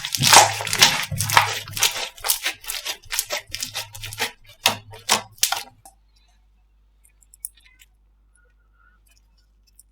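Slime being pressed and worked by hand, giving a quick run of crackling pops and clicks that stops about six seconds in.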